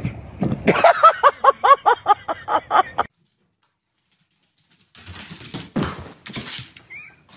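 A dog yipping in a fast run of short, high barks, about four a second, which stops abruptly about three seconds in. After a silent gap come a few thuds and scrabbling rustles as a dog lands and scrambles on an upholstered armchair.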